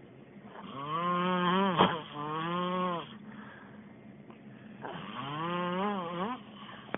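A person snoring: two long, pitched, droning snores. The first catches sharply about two seconds in, and the second starts about five seconds in.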